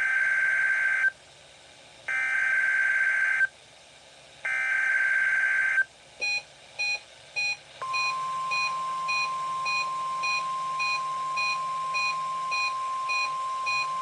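NOAA Weather Radio SAME alert header: three warbling data bursts of about a second each, with a pause between them. A steady single-pitch weather radio alert tone near 1 kHz comes on about eight seconds in and holds. Under it runs a short repeating beep, about twice a second, which starts around six seconds in. This is the weekly test of the tone and SAME alert systems.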